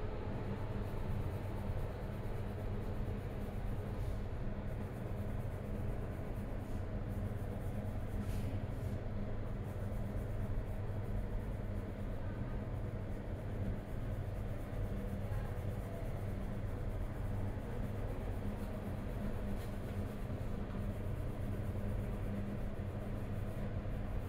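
Colored pencil scratching on paper as it shades in a drawing, over a steady low hum.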